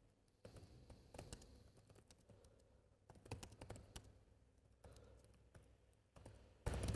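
Faint computer keyboard typing: scattered clusters of quick key clicks as a short line of text is typed, with a louder burst of noise near the end.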